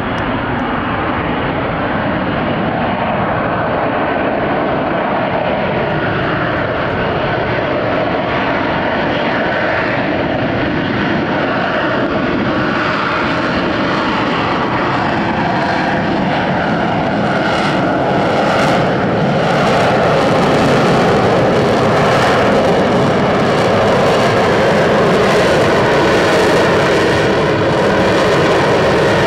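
A Marine F-35B's single F135 jet engine roaring steadily overhead. The roar grows louder and harsher about two-thirds of the way through as the jet comes closer or adds power.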